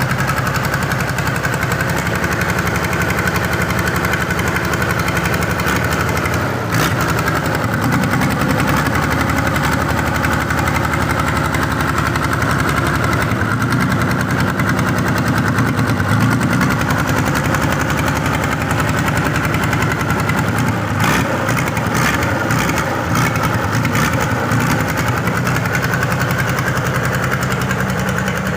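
Sawmill engine running steadily, a little louder from about seven seconds in, with a few sharp knocks a little past twenty seconds.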